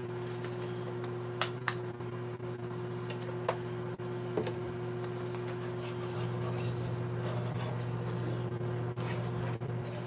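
Wooden spoon stirring gravy in a skillet, with a few light knocks of the spoon against the pan, over a steady low hum.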